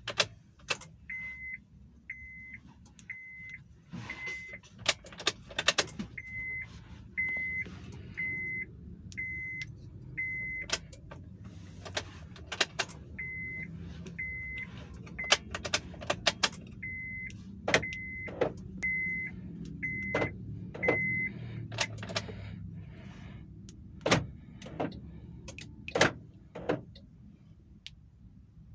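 Short electronic beeps at one steady pitch, about one a second in runs of four or five, mixed with sharp clicks and knocks, heard while a car key and remote are being worked on.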